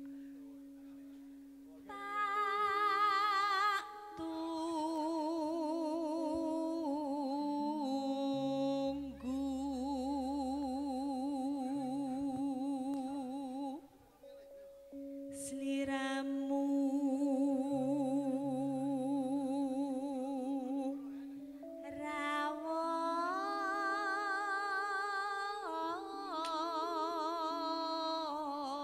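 Javanese tayub music: a singer holding long wavering notes with strong vibrato, phrase after phrase, over gamelan accompaniment.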